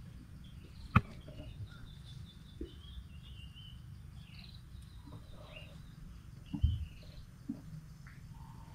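Small birds chirping in short calls over a low rumble of wind and handling noise. A sharp click about a second in and a louder low thump a little after six and a half seconds.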